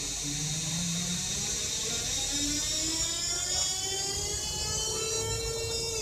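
Škoda 15Tr trolleybus's electric traction drive whining as the trolleybus pulls away and gathers speed, heard from inside the passenger cabin: a dense set of high tones, some slowly rising and others falling in pitch, over a low rumble.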